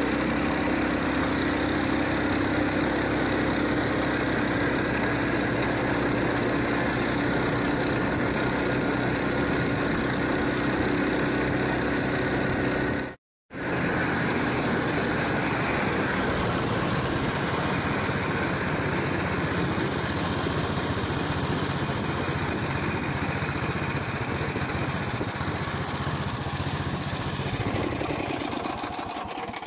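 Engine of a small tracked snow vehicle running steadily at travelling speed while it tows loaded sleds over snow. A brief silent gap falls about 13 seconds in, and the engine fades away near the end.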